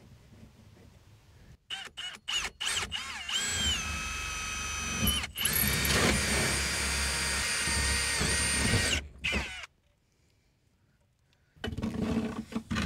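Power drill drilling a hole through the roof: a few short trigger pulls, then the motor whining steadily for about five seconds before stopping. Its pitch dips once near the start of the long run. A few scattered knocks follow near the end.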